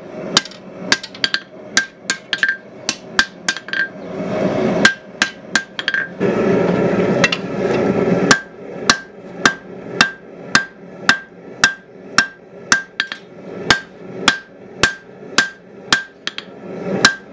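A hand hammer strikes red-hot steel on an anvil at about two blows a second, each blow with a short ringing note. The smith is forging down the shoulder and tang of a kitchen knife blank. About four seconds in, the hammering stops for a few seconds of steady rushing noise, then resumes at an even pace.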